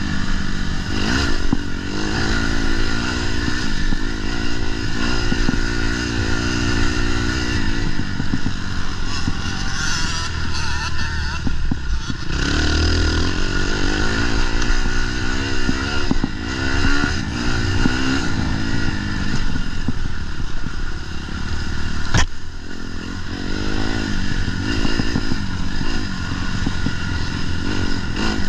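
Snowmobile engine running hard, its pitch rising and falling as the throttle opens and closes, with clatter from the sled. About twenty-two seconds in there is one sharp knock.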